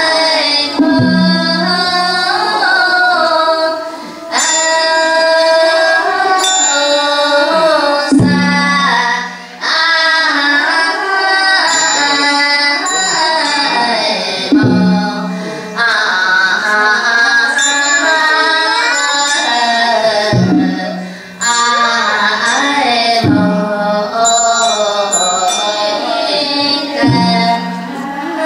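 Ceremonial temple music: a wavering melodic line that does not stop. Under it a large drum is struck about six times, every three to seven seconds, each stroke leaving a short low ring.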